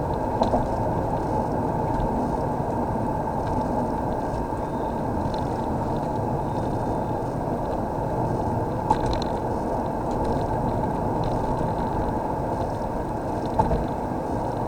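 Steady low cabin noise of a car on the move, road and engine sound with the air conditioning running, broken by a few short clicks.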